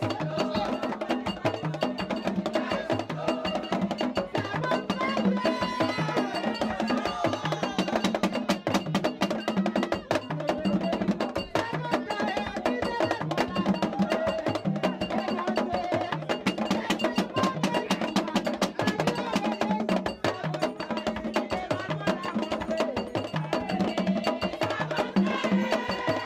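Haitian Vodou ceremonial music: drums and percussion keep a steady beat under a group of voices singing.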